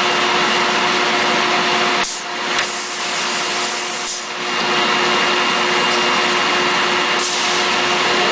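Steady running noise of heavy forging-shop machinery: a loud, even hiss with a steady hum through it, dipping briefly about two seconds in and again around four seconds.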